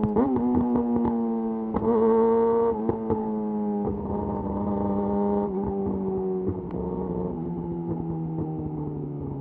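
Yamaha YZF-R6 inline-four engine through a de-catted Akrapovic slip-on exhaust, holding a steady note and then slowly dropping in revs as the bike rolls off the throttle, with scattered sharp pops.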